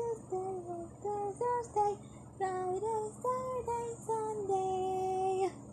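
A girl singing a simple children's tune alone: short notes stepping up and down, ending on one long held note that stops just before the end.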